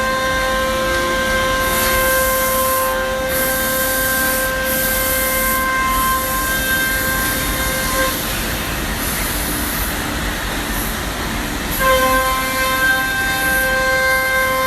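CNC router spindle running with a steady high whine over the hiss of the bit cutting plywood. The whine drops away about eight seconds in, leaving only the cutting hiss, and comes back suddenly about four seconds later.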